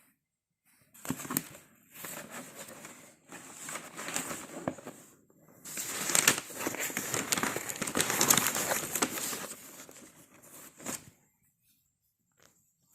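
Packaging being crinkled and rustled while a watch box is unwrapped: crackly rustling in three spells of a few seconds each, with short pauses between them.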